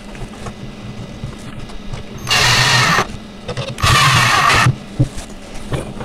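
Cordless drill-driver driving screws into a wooden crib rail: two short runs of the motor, the second a little longer, with light knocks from handling the parts between them.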